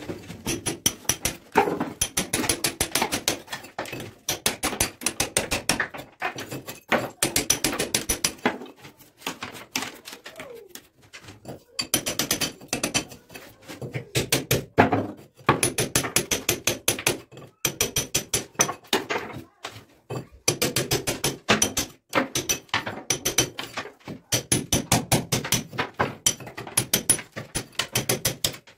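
Hammer striking a steel chisel to cut a wiring chase into a brick wall: rapid blows, about five a second, in runs of a few seconds with short pauses, each blow with a bright metallic ring.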